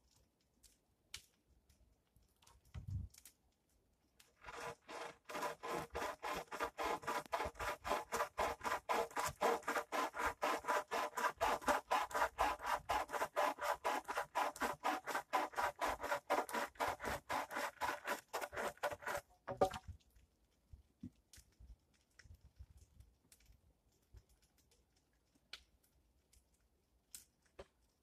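Hand saw cutting through wood with quick, even back-and-forth strokes, about four a second. It starts about four seconds in and stops suddenly after about fifteen seconds. A soft low thump comes just before it.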